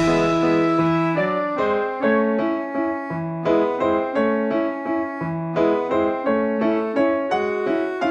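Background piano music: a gentle melody of separate notes at a steady pace.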